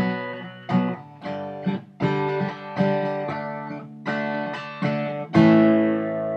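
Acoustic guitar playing an instrumental passage, a run of strummed and picked chords with ringing notes; a louder chord struck about five seconds in rings on.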